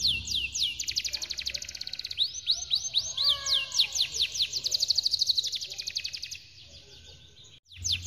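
Domestic canary singing fast rolling trills of rapid repeated high notes, with some rising and falling sweeps and lower warbled notes about three seconds in. The song breaks off about six seconds in.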